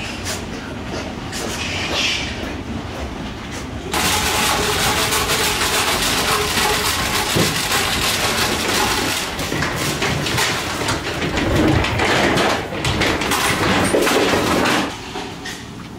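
Weaner piglets being herded through a pen, their small trotters clattering and scuffling on the floor over a steady background rush. The clatter jumps suddenly louder about four seconds in and drops back near the end.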